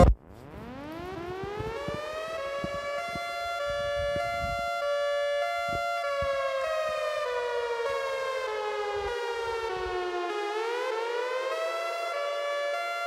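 Outdoor tornado warning siren sounding an alternate wail: it winds up from a low pitch to a steady high tone, sinks slowly in pitch over several seconds, then climbs back up near the end and holds.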